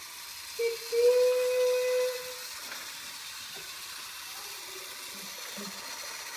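A remote-control toy train's electronic steam-whistle sound effect: one held, level whistle tone lasting about a second and a half, starting about a second in after a short blip, followed by a steady hiss.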